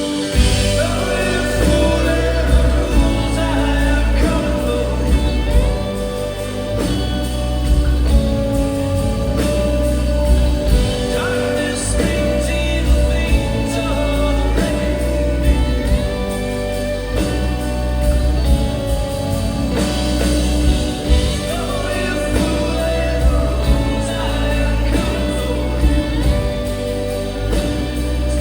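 A rock band playing a song, with drums and a heavy bass under a singing voice.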